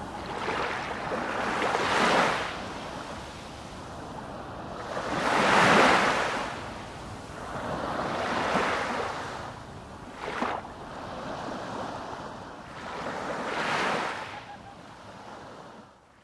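Ocean waves surging and washing back, rising and falling every three to four seconds, the biggest surge about six seconds in. A short sharp splash comes about ten seconds in, and the waves fade out at the end.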